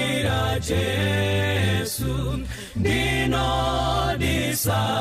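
A congregation singing a slow Shona hymn together, holding long notes with a short breath break about two and a half seconds in.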